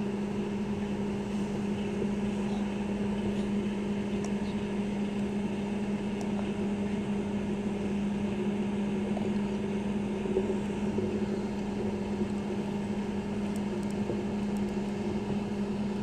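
Microwave oven running: a steady, even hum with a few faint ticks near the end.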